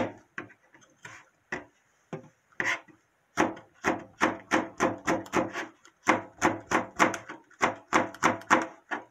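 Kitchen knife slicing a red chili pepper into rings on a plastic cutting board. A few scattered cuts at first, then from about three seconds in a steady run of about three knife strikes a second.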